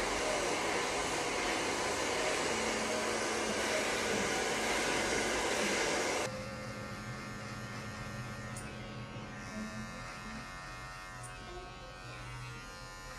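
A hair dryer blowing steadily, then cutting off suddenly about six seconds in, leaving the steady buzz of electric clippers running.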